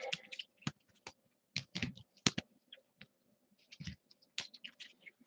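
Trading cards being handled and separated by hand: a faint, irregular run of light clicks and taps.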